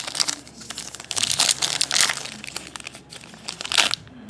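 Foil wrapper of a trading card pack crinkling in several short bursts as hands work it open.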